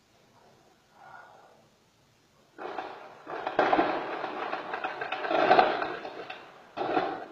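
Gunfire: a long burst of rapid shots starts suddenly about two and a half seconds in and runs on for some four seconds, followed by one more short burst near the end.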